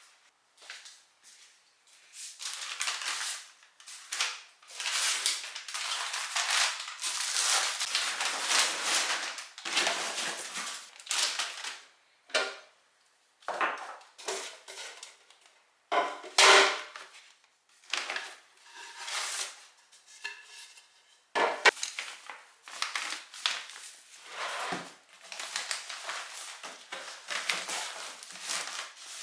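Dishes and kitchenware being handled during kitchen cleaning: irregular clatter, rubbing and rustling, with a few sharp knocks, the loudest about halfway through.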